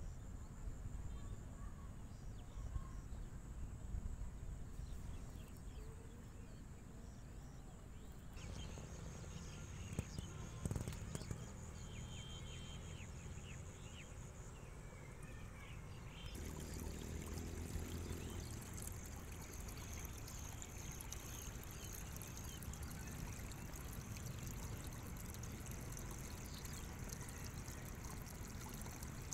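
Water trickling and pouring through a narrow irrigation ditch cut into the earth of a rice field, a steady run of water from about halfway on. Before that there is faint open-air ambience with a high steady tone and a few knocks.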